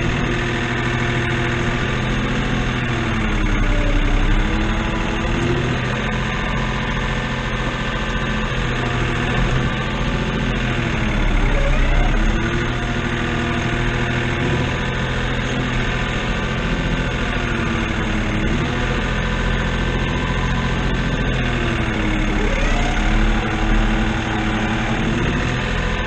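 New Holland tractor's diesel engine running, heard from inside the cab, its pitch dipping and coming back up about five times as the front loader works round hay bales.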